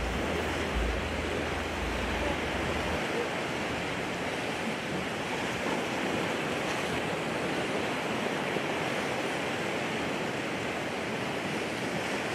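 Low surf washing onto the shore, a steady rush of breaking water. A low rumble underneath stops about three seconds in.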